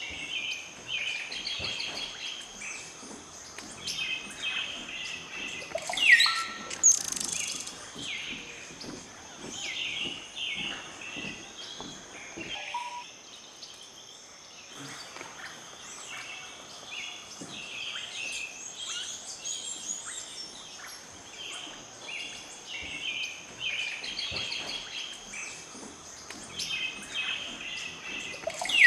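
Forest birds chirping and calling all through, many short high notes, with a louder call about six seconds in, over a steady high-pitched hum.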